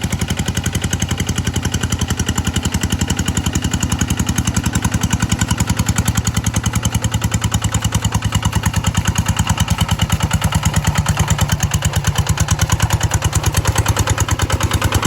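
G1000 engine running steadily, with an even, rapid firing beat.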